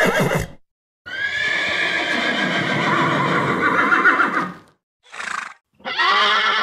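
Horses neighing: a neigh trailing off at the start, a long whinny of about three and a half seconds, a short call, then another whinny beginning near the end.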